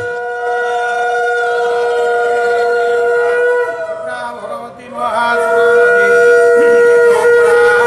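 Conch shell (shankha) blown in two long, steady, loud notes. The first fades about four seconds in; the second slides up to the same pitch a second later and is held.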